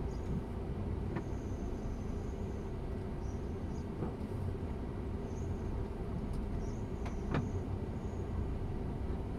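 Truck engine running with a steady low rumble, heard from inside the cab as the truck moves slowly, with a few light clicks.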